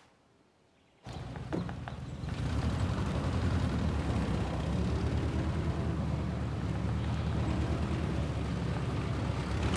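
A motor vehicle's engine running steadily with a low rumble. It cuts in abruptly about a second in after near quiet, with a few light knocks just after.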